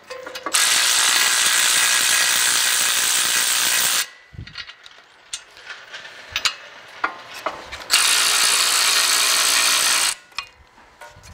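Cordless electric ratchet spinning out brake caliper bracket bolts: two long runs, the first about three and a half seconds and the second about two seconds, with light metal clicks and knocks between them.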